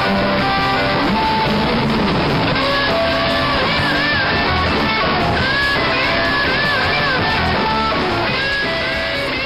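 A ska-punk band playing, led by strummed electric guitar. A wavering lead melody comes in over it about two and a half seconds in.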